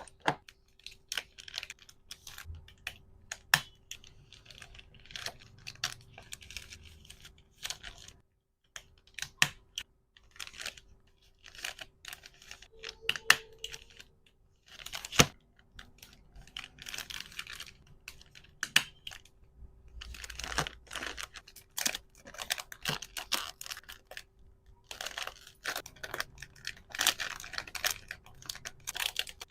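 Hands packing small items: a quick, irregular string of clicks and taps with crinkling and tearing of packaging material, pausing briefly a couple of times. A faint steady hum runs underneath.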